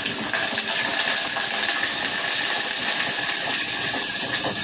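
Tadka (tempering) of garlic, mustard seeds, dried red chillies and curry leaves sizzling steadily in hot oil.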